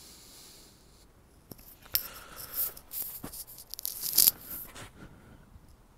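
Irregular rustling and scraping with scattered clicks, starting about a second and a half in and dying away near the end: handling noise from the person filming moving around.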